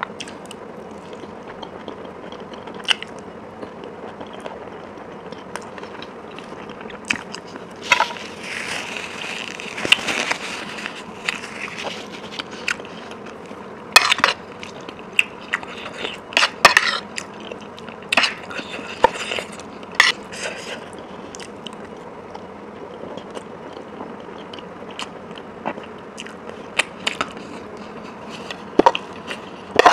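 Close-miked eating: biting and chewing food, with scattered sharp clicks that fit cutlery tapping a plate.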